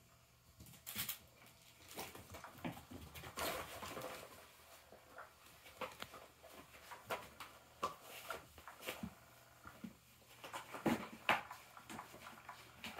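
Kittens playing and scuffling: irregular soft thumps, scratches and rustles of paws on carpet and a fabric toy cover, with the busiest, loudest flurry about eleven seconds in.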